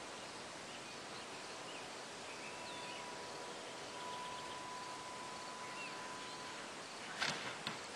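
Open-field outdoor ambience: a steady hiss with a few faint bird chirps, then a quick cluster of sharp clicks near the end.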